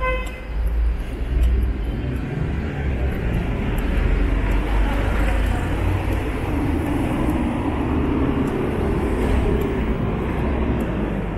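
Street traffic: vehicle engines and tyres rumbling steadily, swelling as a vehicle passes in the middle. A short pitched beep sounds right at the start.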